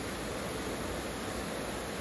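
Heavy tropical rain pouring steadily, an even rushing noise.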